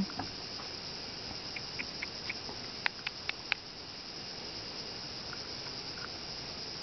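Steady high-pitched insect chorus, with scattered faint ticks and a quick run of four sharp clicks about three seconds in.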